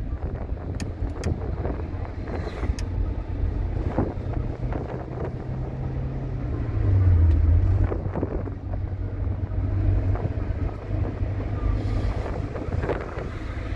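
Car driving on an open road, heard from inside the cabin: a steady low engine and tyre rumble with wind noise, a little louder about halfway through.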